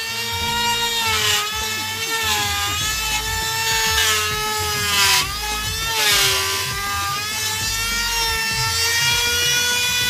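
Handheld electric trimmer router running at high speed and cutting into a wooden board. Its steady whine dips in pitch several times as the bit bites under load, with bursts of cutting noise at each dip.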